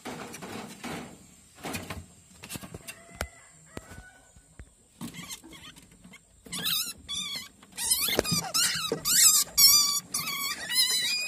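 Rats squealing: after a few scattered knocks on the cage, a rapid run of loud, high, wavering squeals starts about halfway through and comes thick and fast to the end, the sound of rats fighting.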